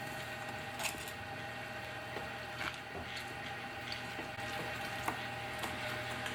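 Soft squishing and a few light clicks of food being handled, over a steady electrical hum.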